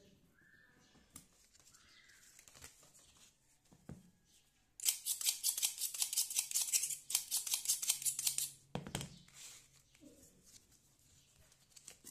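Paper pattern being cut out by hand: a quick run of sharp, rapid cutting strokes starting about five seconds in and lasting about four seconds, followed by a knock and light paper handling.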